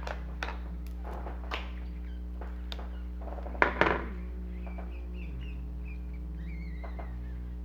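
A few clicks from handling small plastic toy parts, then two sharp knocks a little before halfway through, over a steady low hum.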